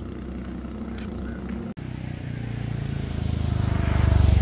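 A vehicle engine running steadily, with a brief cut in the sound partway through, then a deeper rumble growing louder toward the end.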